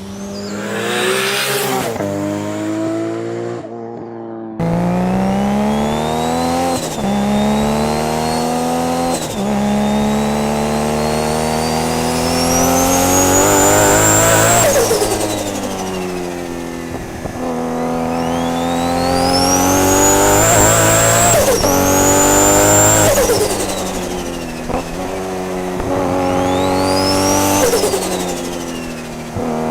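Nissan R32 GT-R's RB26 straight-six, built to about 900 hp, revving hard through the gears: the engine note climbs and drops back several times as it shifts and lifts off. A high whine rises with the revs and falls away each time the engine comes off.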